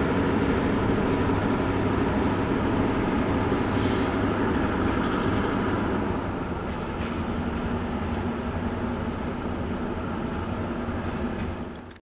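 Train rolling away down the track: a steady rumble that drops a step about halfway through and fades out at the very end.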